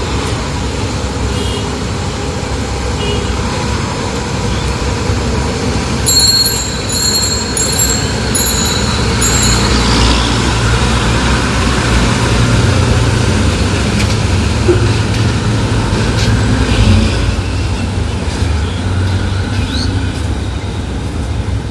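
Heavy Tata diesel truck engine running loud with a deep, low rumble that grows louder in the middle, over road traffic noise. A string of short, high-pitched beeps breaks in and out about six to nine seconds in.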